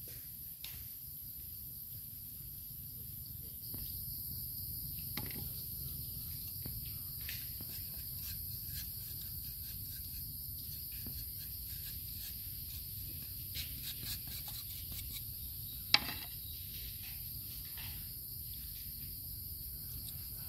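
Steady chorus of jungle insects, with scattered light clicks and knocks and one sharp knock about 16 seconds in.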